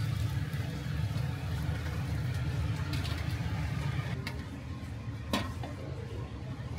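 Steady low hum of a commercial kitchen's exhaust fan and fryer equipment, with a few sharp metal clinks from the wire fry basket and steel trays, the loudest about five seconds in.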